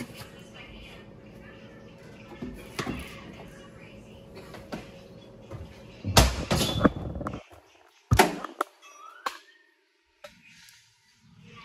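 Kitchen clatter: a few light knocks over a steady hum, then two loud door-like bangs about two seconds apart, the first with a rattling tail. The hum cuts off abruptly between them.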